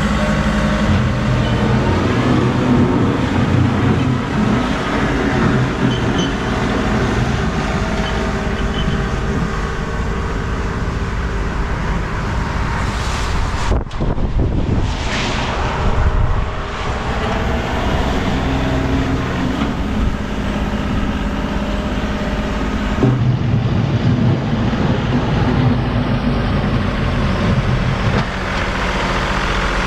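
Tractor engine running, its pitch rising and falling; the sound changes abruptly about 14 and 23 seconds in.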